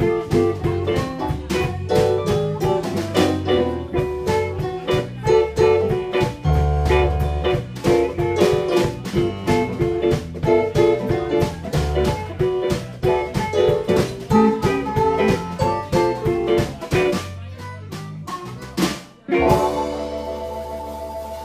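Live blues band playing: electric guitar, Hammond organ and drum kit in a steady groove. Near the end the band stops on a final accented hit, and a held chord rings on, slowly fading.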